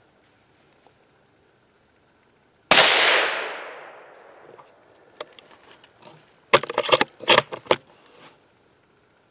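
A single gunshot at a squirrel in the woods: a sharp crack about three seconds in, with an echo that dies away over a second and a half. A few seconds later comes a quick run of sharp clatters and rustles.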